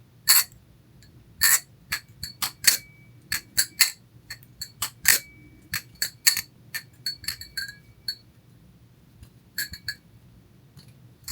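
Balisong (butterfly knife) being flipped: the handles swing and snap open and closed against the blade, giving an irregular run of sharp metallic clicks and clacks, some leaving a brief ringing tone. The clicking pauses for about a second some eight seconds in, then resumes.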